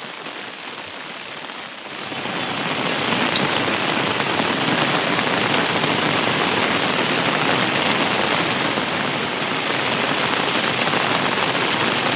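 Heavy rain falling, a steady hiss that grows louder about two seconds in.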